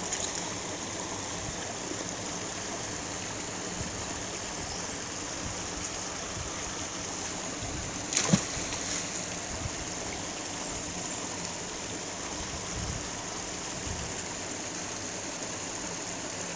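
Small waterfall on a stream, a steady rush of water. About eight seconds in there is one short splash.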